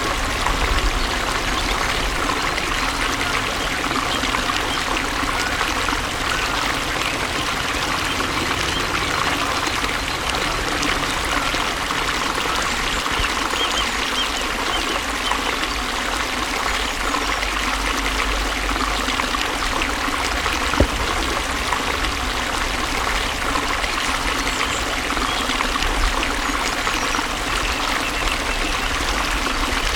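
Flowing water running steadily, with one brief tap about two-thirds of the way through.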